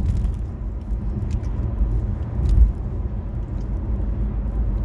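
Steady low rumble of a car's engine and tyres on the road, heard from inside the cabin while driving, with a couple of faint clicks.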